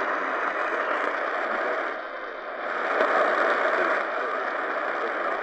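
Static and hiss from the speaker of a Retekess TR103 pocket radio tuned to 870 kHz medium wave, with a weak distant daytime AM station buried in it, almost but not quite copyable. The noise dips briefly and then swells louder about three seconds in.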